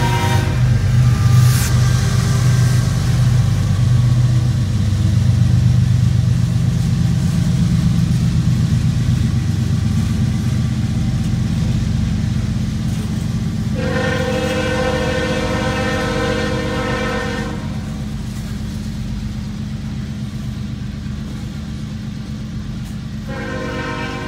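CSX freight train rolling through a grade crossing behind GE ES44AH diesel locomotives: a steady low rumble of locomotives and cars, loudest in the first dozen seconds. The locomotive's multi-note air horn finishes a blast just at the start, sounds one long blast of about four seconds around the middle, and starts another blast near the end.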